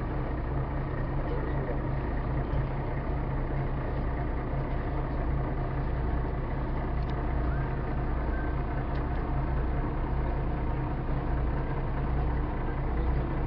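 A tour boat's engine running steadily under way: an even low drone with a steady hiss of rushing noise over it.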